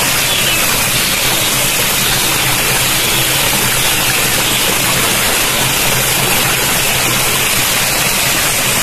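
Loud, steady rushing of water from a waterfall, an even hiss that does not change.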